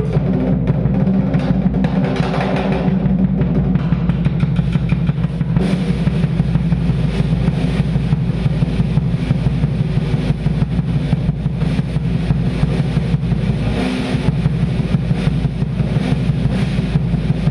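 Acoustic drum kit played in a fast, dense drum solo: a continuous run of rapid stick strokes over a heavy low rumble.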